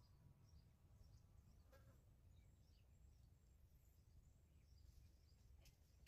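Near silence: faint outdoor ambience with scattered faint high chirps, like small birds, and a single soft click about two seconds in.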